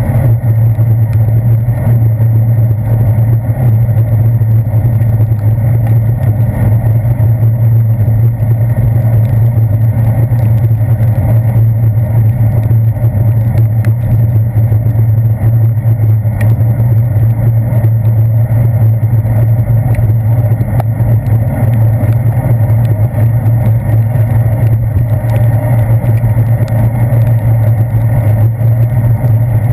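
Steady low drone of wind and road vibration picked up by a handlebar-mounted GoPro Hero 2 inside its waterproof housing while cycling on a wet street. The drone holds at one pitch throughout, with a faint hiss above it.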